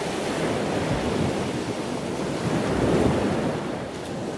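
Wind and water noise aboard a sailboat under sail: wind buffeting the microphone over the wash of waves, swelling and easing, loudest about three seconds in.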